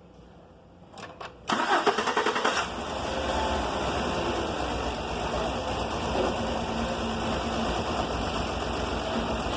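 A couple of clicks, then the Chevrolet Silverado's starter cranks the engine briefly before it catches and settles into steady running on gasoline primed into the throttle body. The engine starting this way confirms that the fuel pump is the fault behind its cranking without starting.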